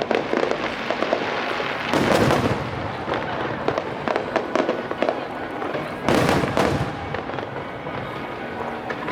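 Aerial fireworks going off in quick succession, a continuous run of bangs and crackles, with louder clusters of bursts about two seconds in and again about six seconds in.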